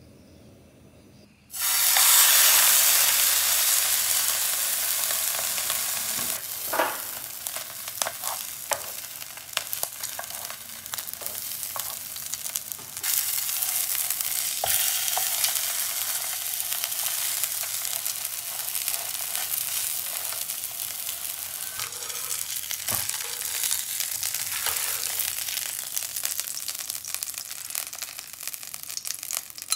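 Salmon fillet sizzling as it pan-fries in a little oil in a nonstick frying pan; the sizzle starts sharply about a second and a half in. Occasional clicks and taps of a metal spoon and a wooden spatula turning the fish.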